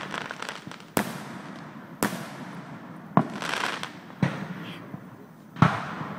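Aerial fireworks display: five sharp bangs about a second apart, each trailing off in a fading rumble.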